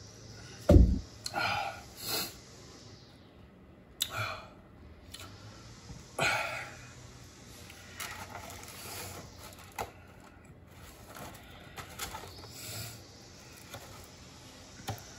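Eating sounds: irregular chewing and mouth noises in short bursts, with one loud, deep thump about a second in.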